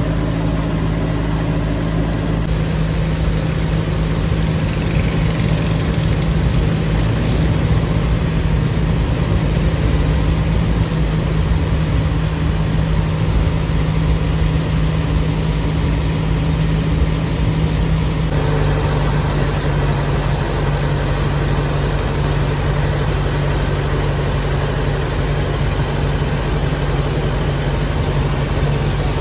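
An engine running steadily at an even pitch, which steps slightly lower about two-thirds of the way through.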